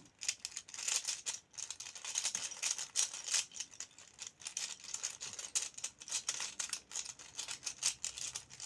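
A plastic 3x3 puzzle cube being turned rapidly by hand: quick, irregular clicking and clacking as its layers snap round. The cube is a poor-turning one that has already lost a piece.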